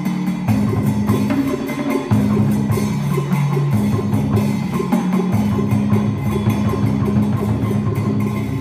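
Traditional Vietnamese water-puppet theatre music: a quick, steady percussion beat over low held notes that step to a new pitch about every second and a half.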